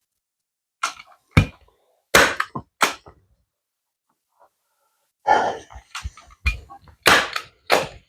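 Heavy-duty manual staple gun firing staples into a boat cushion's base, a series of sharp clacks: four spaced shots, then a quicker run of shots mixed with handling of the fabric about five seconds in.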